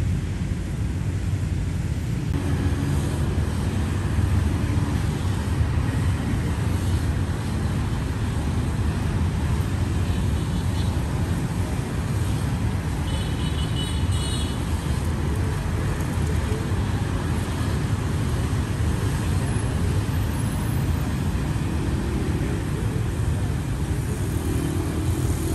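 Steady city traffic noise: cars and motorbikes running on the surrounding roads, a continuous low rumble and hiss.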